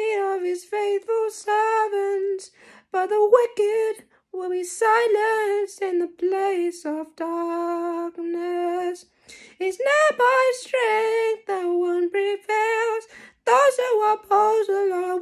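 A woman singing solo and unaccompanied, in phrases broken by short pauses for breath, with one long held note about halfway through.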